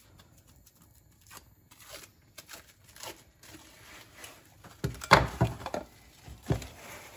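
Plastic cling film crinkling and tearing as it is pulled off the roll and stretched over a bowl of dough. A few louder knocks come about five seconds in.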